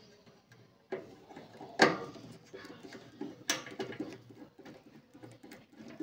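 Screwdriver working the mounting screws of a microwave oven's magnetron, with two sharp metal knocks, about two and three and a half seconds in, and smaller clicks and scrapes between them.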